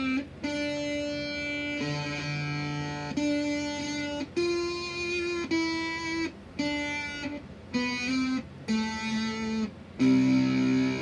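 Electric guitar played through a clone of the Zvex Machine distortion pedal. Single notes are held about a second each with short breaks between them, and a louder, fuller chord comes near the end.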